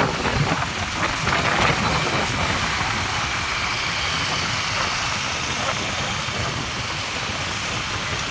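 Steady rushing water noise with a vehicle engine running underneath.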